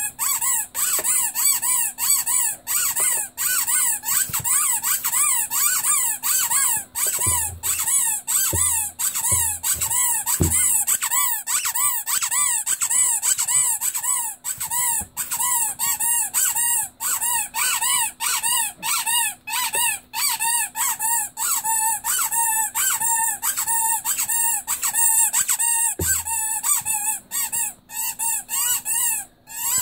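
Rubber squeaky Pinocchio doll squeezed over and over, each squeeze giving a whistle-like squeak that rises and falls in pitch, about two to three squeaks a second, with a few soft handling thumps.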